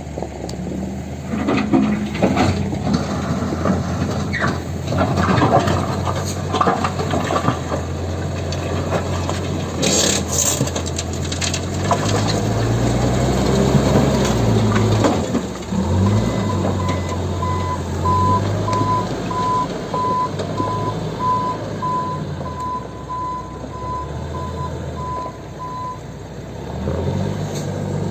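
Diesel engine of a Volvo backhoe loader working under load while loading dirt, its revs rising and falling, with some knocks and clatter. From about halfway through, a reversing alarm beeps about twice a second for roughly ten seconds.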